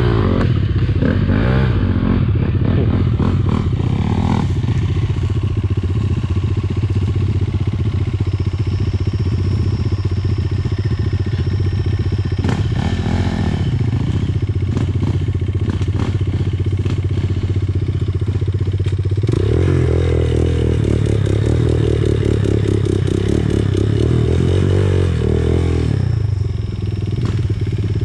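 Dirt bike engine running while the bike is ridden offroad, its revs rising and falling, and louder from about two-thirds of the way through. Scattered knocks and rattles come from the bike working over rough ground.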